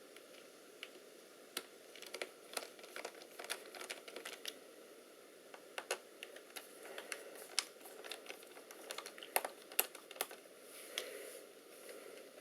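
Faint, irregular small clicks and taps of a screwdriver and fingers working on a laptop's battery screws, with a little soft rustling.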